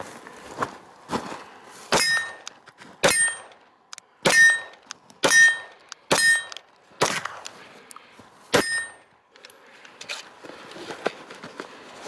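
Seven pistol shots from a Zev-customised Glock, fired at an uneven pace over about seven seconds, most of them with a short metallic ring from a steel target being hit.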